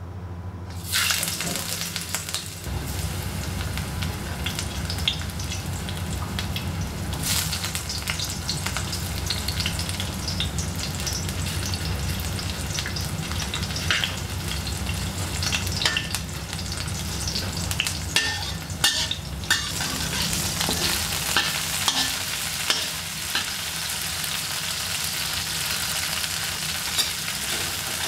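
Garlic and ginger frying in hot oil in a stainless steel wok. The sizzling starts about a second in, and a metal spatula scrapes and clicks against the pan as it stirs, over a steady low hum.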